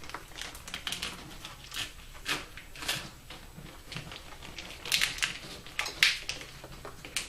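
Plastic split wire-loom tubing being handled and worked over a wiring bundle, giving irregular crinkling rustles and clicks, with a few sharper snaps near the middle and end.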